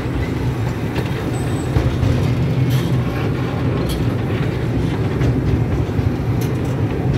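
Small zoo-ride train rolling along its track, heard from an open car right behind the locomotive. A steady low rumble of wheels and running gear goes on throughout, with a few scattered clicks.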